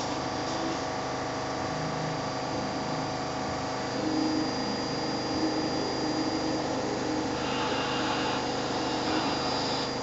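Zanussi front-loading washing machine on its final spin, a steady loud whirring with a constant motor whine. It sounds like a helicopter.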